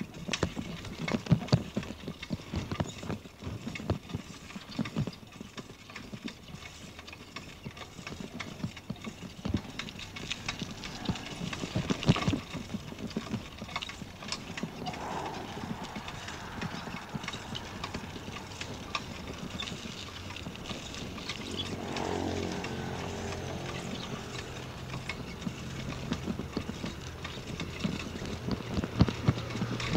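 Bicycle rattling and clicking as it rolls over a rough concrete lane, with irregular knocks throughout. From about two-thirds of the way in, a steady engine hum joins and grows louder toward the end.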